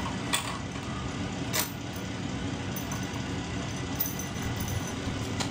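A few light metal clicks and clinks as a motorcycle brake master cylinder and its clamp bracket are handled against the steel frame, over a steady low background hum.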